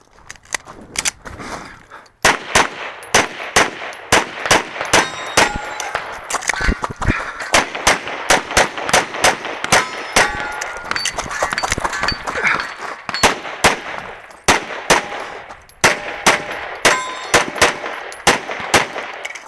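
Rapid pistol fire from a 1911-style single-stack pistol during a timed stage run: dozens of shots, often in quick pairs, with steel targets ringing when hit. Brief lulls come about two seconds in and near the three-quarter mark.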